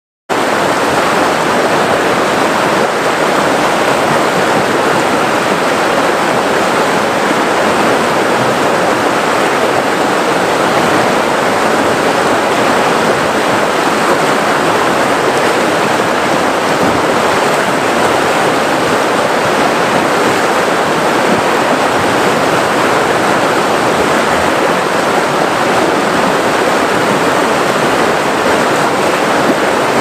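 Rushing water of river rapids, a steady loud rush that starts abruptly just after the beginning and holds unchanged.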